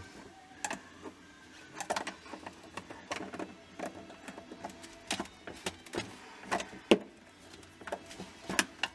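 Scattered plastic clicks and knocks at irregular spacing as a refrigerator's fan cover and its wiring plug are worked loose by hand, with one sharper knock about seven seconds in.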